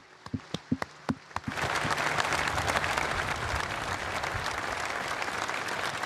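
Crowd applause: a few scattered claps at first, then the whole crowd joins in about a second and a half in and keeps clapping steadily.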